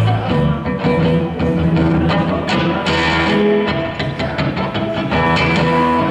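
A rock band playing live without vocals: guitar over a bass line, with a steady beat.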